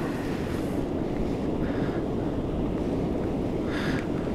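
Steady wind blowing across the microphone on open water, with sea water moving against the kayak.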